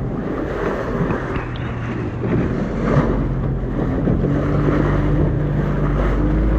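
A tour boat's motor running steadily under way, a continuous low hum, with wind buffeting the microphone and water rushing past the hull.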